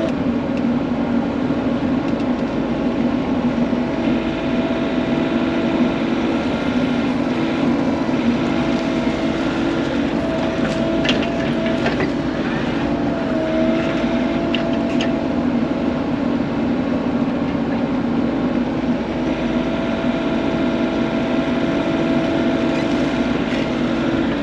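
Compact excavator digging soil: its diesel engine runs steadily under a hydraulic whine that wavers as the boom and bucket move, with a few clanks near the middle.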